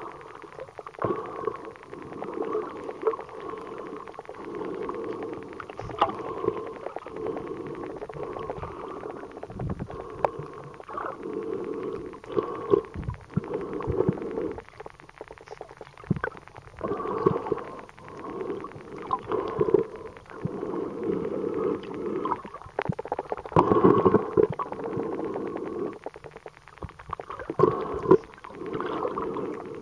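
Muffled underwater water noise: gurgling and sloshing around a camera held below the surface, swelling and fading unevenly, with occasional sharp knocks.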